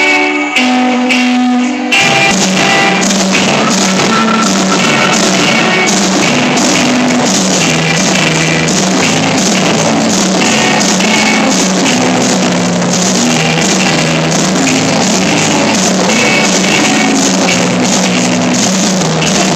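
Live rock band playing: an electric guitar picks a sparse intro of single notes, then about two seconds in the drums, bass line and full band come in and play on steadily.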